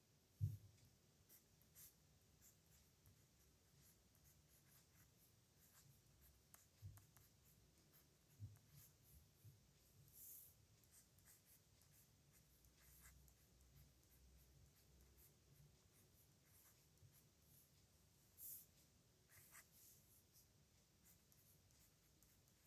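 Pen writing on paper: faint, irregular scratching of the strokes, with a soft thump about half a second in.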